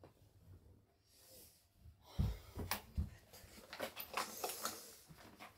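Two low thumps about two seconds in, then a run of clicks and rustles as papers and objects are handled on a tabletop, in a small room.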